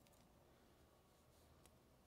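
Near silence: room tone, with one faint click about three-quarters of the way in.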